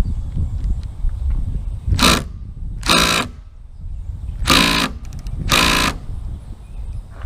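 A power driver running in four short bursts, spinning screws on the Jeep's door and windshield hardware.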